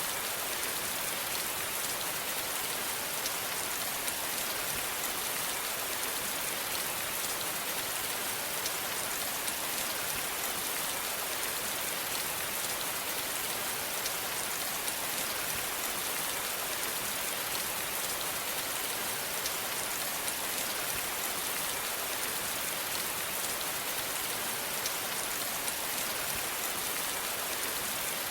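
Steady rain falling, a constant hiss with scattered individual drop ticks.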